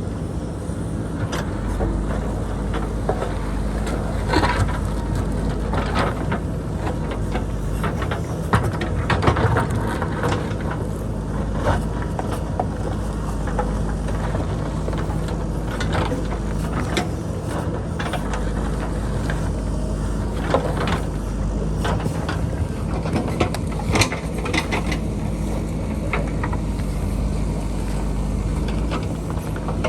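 JCB backhoe loader's diesel engine running steadily under load, with frequent sharp knocks and clatters of the bucket striking and scraping rock and boulders.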